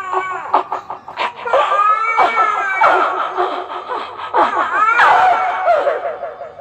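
A man's loud, theatrical laughter, voiced for a character in a Chhau dance drama, in repeated bursts.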